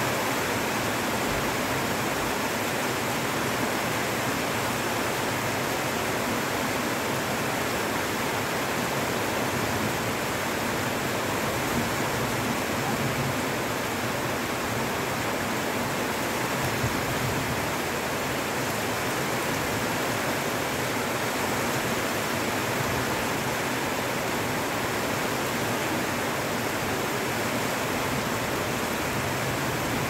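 Heavy rain falling steadily, a dense even hiss with no break.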